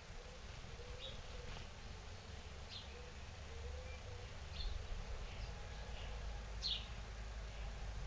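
Small garden songbirds at feeders giving short, high chirps, scattered irregularly, about eight in all. Under them runs a low rumble that grows from about halfway through.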